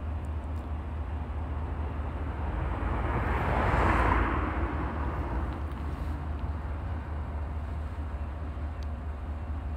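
A vehicle passing close by: its tyre and engine noise swells to a peak about four seconds in and fades, over a steady low rumble.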